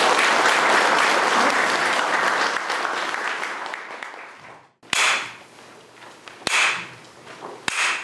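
Audience applauding, fading away over the first four seconds or so. After a short break come three sharp wooden clapper strikes about a second and a half apart: the signal for the assembly to bow.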